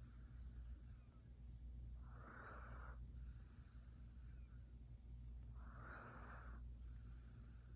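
F2 Savannah cat snoring softly in deep sleep: two breathy snores about three and a half seconds apart, each followed by a fainter, hissier breath.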